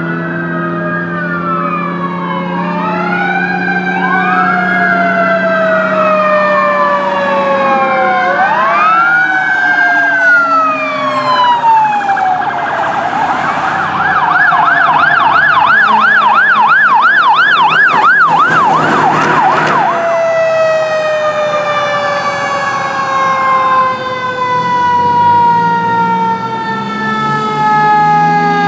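Emergency vehicle sirens on responding police and fire vehicles. First several overlapping wails rise and fall, then a fast yelp of about three cycles a second, with a brief harsh blast near its end. After that comes a long, slowly falling siren tone, and near the end a low siren tone starts rising.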